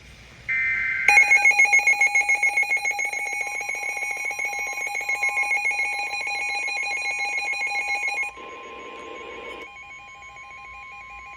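Weather radio emergency alert tones. A brief burst of two alternating data tones (the SAME header) is followed by a loud, rapidly pulsing electronic alarm that stops abruptly after about seven seconds. Beneath it, the steady 1050 Hz NOAA Weather Radio warning alarm tone starts about three seconds in and keeps sounding once the pulsing alarm has stopped.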